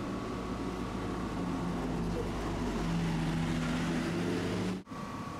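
A vehicle's low, steady motor hum whose pitch shifts slightly about halfway through, cut off abruptly near the end.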